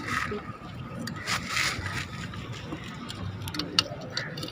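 Metal scooter gearbox parts being handled on a work surface: a short scraping rush about a second in, then a single sharp metal click near the end.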